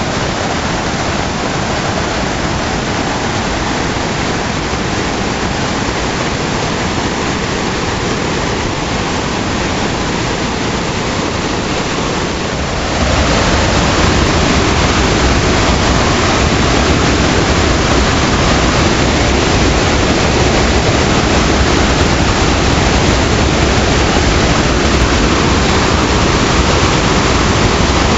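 Floodwater rushing in a loud, steady roar. About halfway through it becomes louder and deeper, with more low rumble.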